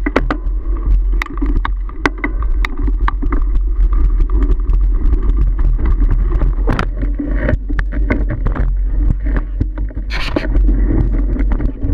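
Mountain bike ridden over a rough dirt trail. Heavy wind rumble on the action-camera microphone runs under frequent clicks and rattles from the bike over bumps. About ten seconds in comes a brief rush of leaves and branches brushing past.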